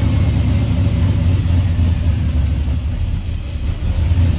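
LS V8 engine idling steadily with a low rumble, freshly started. It is now running on two fuel pumps switched by the engine's PCM.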